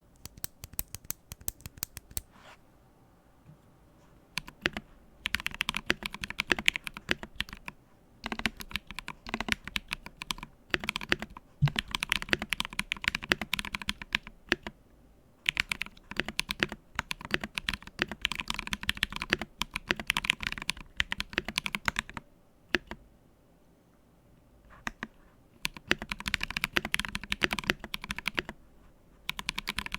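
Typing on a Monstargear Acrylic XO mechanical keyboard, an acrylic stack-mount case with lubed Ethereal Panda tactile switches and PBT keycaps: fast runs of keystrokes in bursts of several seconds, with a couple of short pauses.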